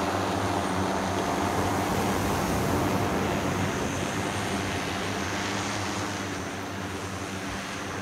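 Propellers of a manned multirotor flying platform, a steady multi-toned hum that fades a little over the last few seconds as the craft flies off.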